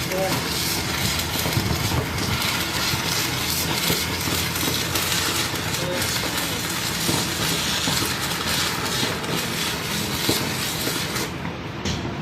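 Steady crackling sizzle of arc welding on a truck's rear axle housing tube, full of small pops. The crackle cuts off a little before the end as the arc stops.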